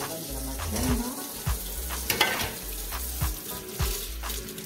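Plantains sizzling on a stovetop grill rack, with a brief louder hiss about two seconds in. Background music with a steady beat and bass line plays underneath.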